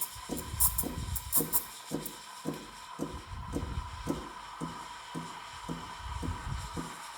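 Background music with a steady beat of about two pulses a second.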